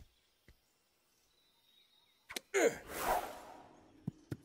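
Cartoon golf sound effects: a sharp click of a club striking the ball, then a loud whoosh with a falling pitch as the ball flies, and two light taps near the end.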